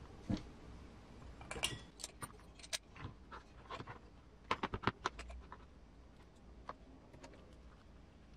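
Light clicks and taps of small hardware parts being handled and set down on a workbench, in scattered groups, busiest about two seconds in and again about five seconds in.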